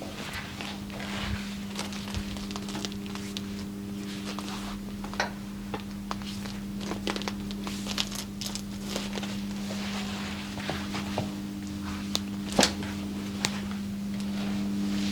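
Hands-on body massage: skin rubbing and scattered short clicks and taps, with a single sharp click about twelve and a half seconds in, over a steady low hum.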